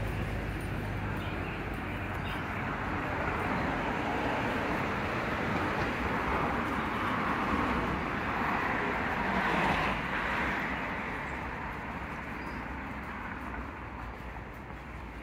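Road traffic going by: a vehicle's passing noise swells to its loudest about ten seconds in, then fades away.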